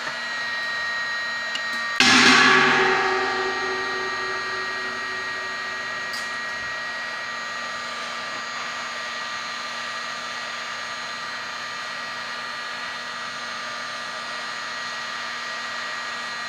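Electric heat gun (paint stripper gun) blowing steadily with a thin motor whine as it heats a circuit board to melt the solder. About two seconds in, a sharp metallic clang rings out and fades over a second or two.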